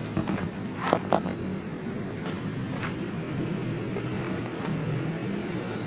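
Handling noise: a few short clicks and scrapes, the sharpest about a second in, over a steady low hum.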